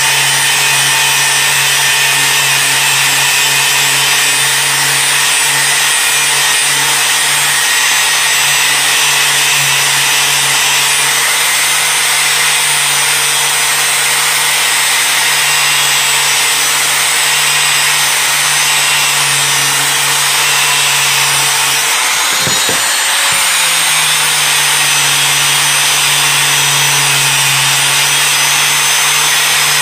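Handheld angle grinder running against the rusted, pitted steel of a hatchet head, grinding off rust with a steady whine and a bright hiss of disc on metal. About three-quarters of the way in, the motor's pitch dips briefly and then picks back up.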